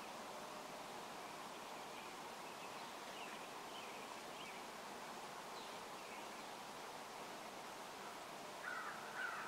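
Quiet open-field ambience: a steady low hiss with faint distant bird calls, a few of them a little louder near the end.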